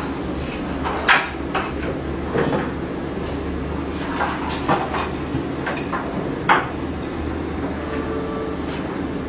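Irregular knocks and clatter of wooden battens being handled and set down, about a dozen sharp strikes at uneven intervals, the loudest about a second in and near six and a half seconds, over a steady low hum.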